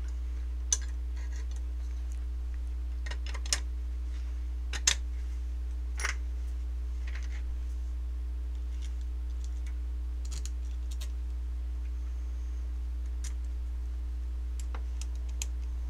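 Scattered light clicks and taps of a metal airsoft gearbox shell and its small screws being handled during reassembly, about nine in all at irregular intervals. A steady low hum runs underneath.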